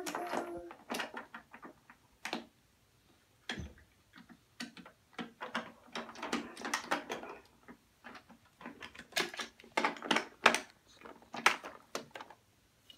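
Small plastic toy cars clicking and clattering against the plastic VTech Park & Learn Deluxe Garage as they are handled and set on its levels, in irregular clusters of sharp clacks, with one duller knock about three and a half seconds in.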